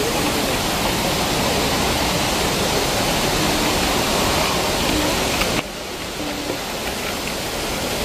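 Steady rushing noise of a waterfall's falling water; about five and a half seconds in it drops suddenly quieter.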